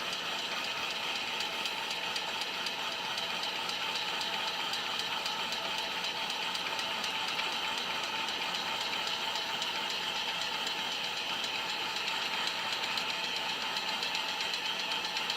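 Heat gun blowing hot air, its fan motor running with a steady whir throughout.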